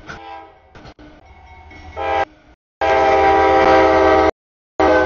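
Freight diesel locomotive horn sounding several blasts, the longest and loudest lasting about a second and a half in the middle, over the low rumble of the train. The blasts start and stop abruptly, chopped by edits.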